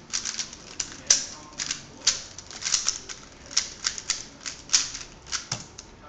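A 3x3 speedcube's plastic layers clicking sharply as they are turned quickly by hand, several turns a second in uneven flurries, while it is scrambled before an inspection countdown.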